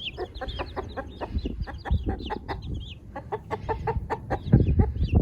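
A mother hen clucking repeatedly over her newly hatched chicks, with the chicks' short, high peeps mixed in.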